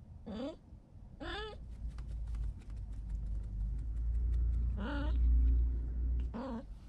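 A heavily pregnant calico cat meowing four times in short rising calls, a day before giving birth. Between the calls come light scratchy clicks and a low rumble as she shifts about in a cardboard box.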